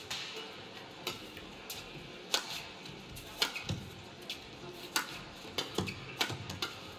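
Badminton rackets striking a shuttlecock in a singles rally: a string of sharp clicks, roughly one a second.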